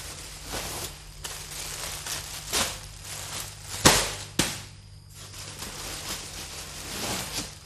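Plastic wrapping and foil balloons crinkling and rustling as packs are handled, with a few sharp crackles, the loudest about four seconds in, over a steady low hum.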